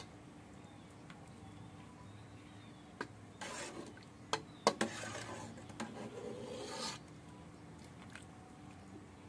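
Faint rubbing and scraping in two short stretches, with a few sharp clicks, over a low steady hum.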